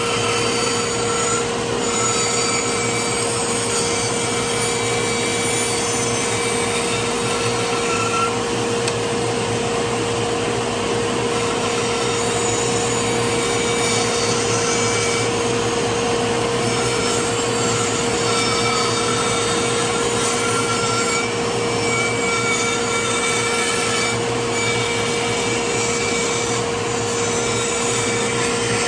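Band saw running and cutting a cedar board: a steady motor hum under the hiss of the blade in the wood, with thin higher whines coming and going through the cut.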